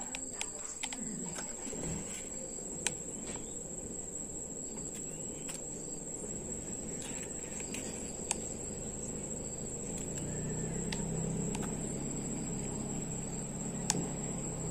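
Insects droning steadily at one high pitch, with a few sharp clicks scattered through. A low steady hum comes in about ten seconds in.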